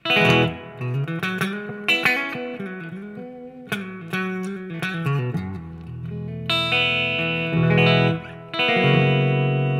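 Epiphone Les Paul Standard Pro electric guitar played clean through a Marshall MG30FX amp with spring reverb, pickup selector in the middle position with both humbuckers. It plays separate picked notes and chords, then held chords that ring on from about halfway through.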